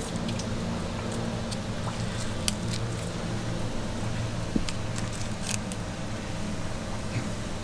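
Flexible fillet knife cutting along a mutton snapper's back. The blade makes small, irregular clicks and crackles through the scales and skin, over a steady low hum.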